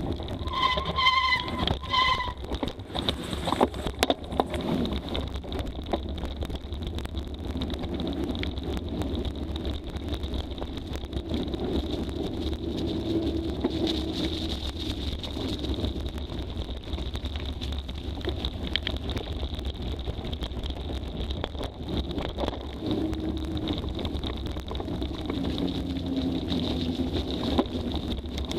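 Mountain bike ridden fast over a dirt forest trail: steady tyre noise with constant clicks and knocks from the bike rattling over bumps, under a low wind rumble on the microphone. Two short high-pitched tones sound about a second apart near the start.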